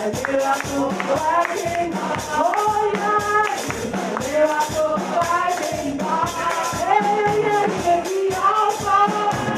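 Worship music: voices singing a melody over a band, with hand percussion keeping a steady beat.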